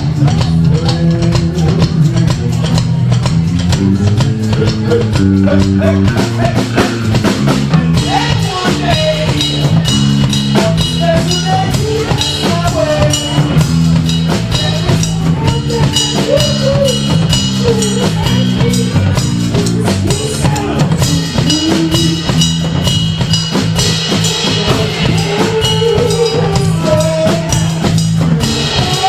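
Brass band playing an instrumental tune over a drum kit, with a stepping bass line under a wavering melody. The sound grows brighter and fuller about eight seconds in.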